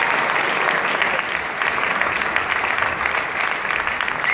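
Audience applause: many hands clapping in a steady, dense clatter.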